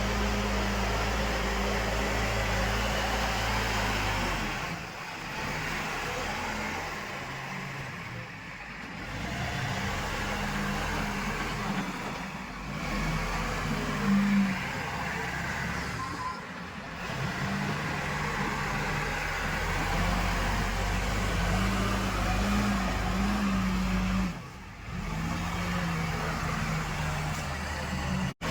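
Diesel engine of a backhoe loader working, its pitch and level rising and falling with load. Its sound drops briefly several times.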